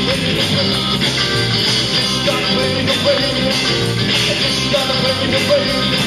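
Live rock music: a man singing over a driving electric guitar, with a wavering held note.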